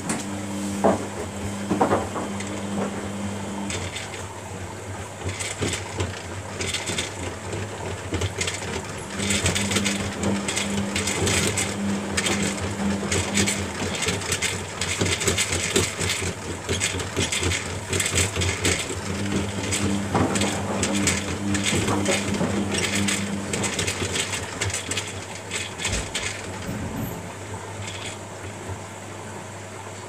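Front-loading washing machines running a quick wash: a steady low hum, a motor whine that starts and stops three times, and a rattling clatter of the load tumbling in the drum through the middle.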